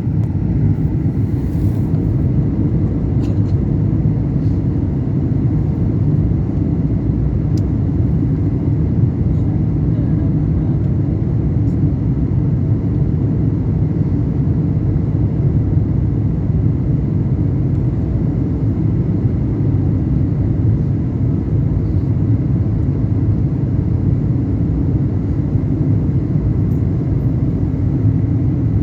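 Airliner coming in to land: a steady low rumble of engines and rushing air, heard from inside the passenger cabin.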